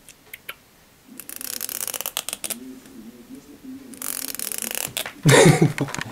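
Comb teeth flicked with a thumbnail: a fast crackling run of tiny clicks, twice, each about a second long. Just before the end, a louder short rustling thump.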